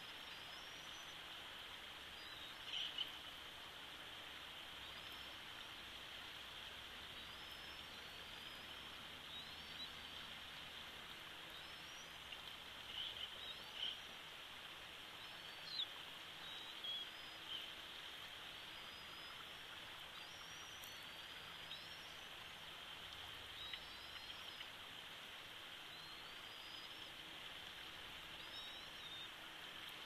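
Faint outdoor ambience with a steady hiss and a series of short, high, rising bird chirps every second or two, a few of them a little louder.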